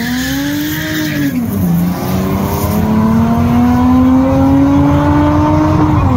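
Four-cylinder drag car engine accelerating hard at high revs. The pitch climbs, drops sharply at a gear change about a second in, climbs steadily again and drops at another shift near the end, growing louder throughout.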